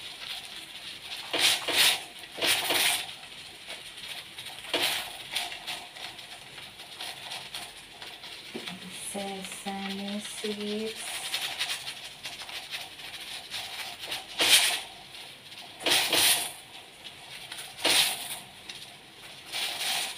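Short scraping and clattering sounds of steel kitchen utensils and a bowl being handled at the stove, in several separate bursts a second or more apart.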